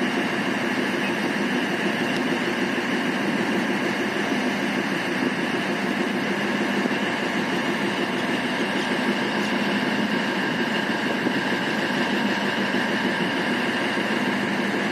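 Diesel engine of a standing diesel-electric multiple-unit (DEMU) train's power car idling, running steadily with no change in pitch or level.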